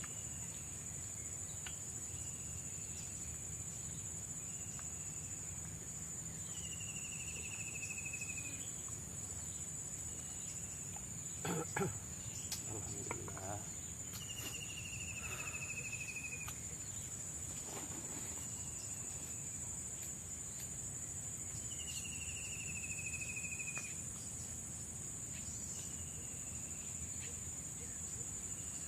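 Tropical forest insect chorus: a steady high-pitched shrill, with a short falling call repeating every second or two. A few knocks sound about twelve seconds in.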